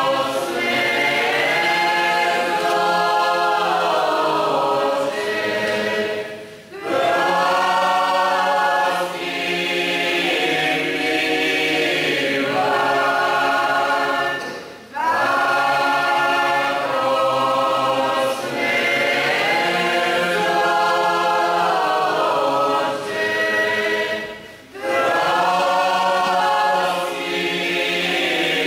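Mixed choir of men and women singing a Croatian Catholic Lenten folk hymn unaccompanied, in long held phrases with three short pauses between them.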